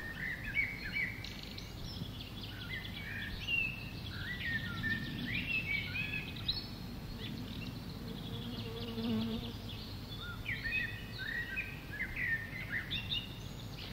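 Small birds chirping and twittering in a garden, many short rising and falling notes in quick scattered runs, with a faint low hum now and then.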